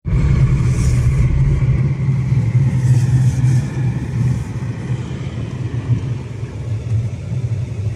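Nissan Frontier pickup driving over snow, heard from inside the cab: a steady low engine and road hum with tyre noise, and a hiss that swells briefly about a second in and again around three seconds in.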